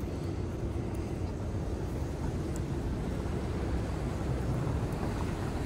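Steady low rumble of city street traffic, with no distinct individual events.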